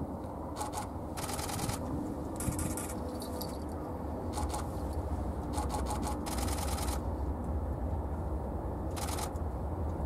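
Camera shutters firing in short bursts of continuous shooting, about eight runs of rapid clicks at irregular intervals, over a steady low rumble.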